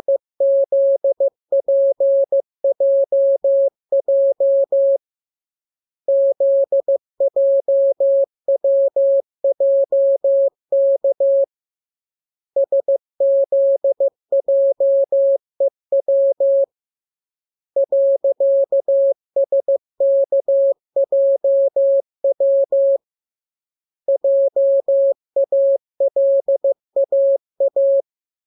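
Morse code (CW) practice signal: a single steady mid-pitched tone keyed in quick dots and dashes, sent as groups of characters with pauses of about a second between groups.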